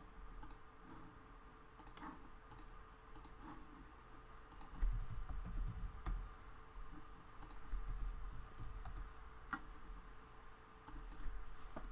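Irregular keystrokes and clicks on a computer keyboard, over a faint steady hum.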